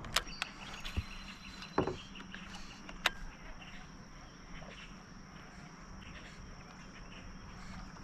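A few sharp knocks and clicks in the first three seconds, then a quiet, steady outdoor background with a faint high whine.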